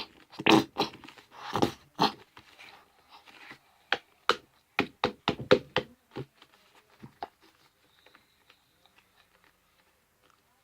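Plastic liquid-soap bottle being squeezed, giving a run of short, gross-sounding squirts and sputters over the first six seconds, then a few faint ticks.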